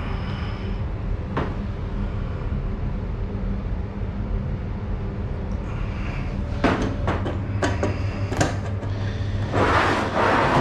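Steady low hum in the room, with plastic clicks and rattles of the spray-gun mixing cup and containers being handled while clear coat is mixed, a cluster of them about two-thirds of the way in, then a short rustling hiss near the end.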